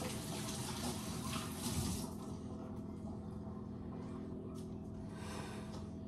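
Kitchen sink tap running, shut off about two seconds in.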